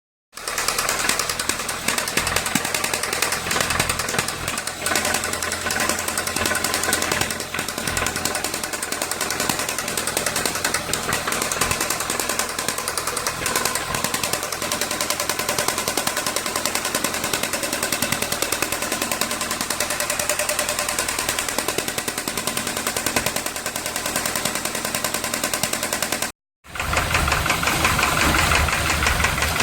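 Volkswagen AP 1.8 engine running with a loud, fast, steady knock, broken once by a short silence near the end. The knock persists with a new oil pump, new hydraulic lifters, checked timing and camshaft, and fresh oil at full level; the owner puts it down to play in a connecting rod.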